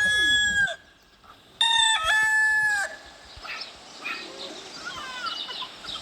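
Roosters crowing: one crow ends about half a second in, and a second full cock-a-doodle-doo follows about a second later. Fainter crowing and clucking fill the rest.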